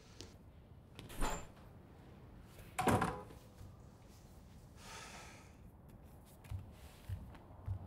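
A door closing with two knocks in a small room, a lighter one about a second in and a louder one about three seconds in, followed by a few faint low thumps.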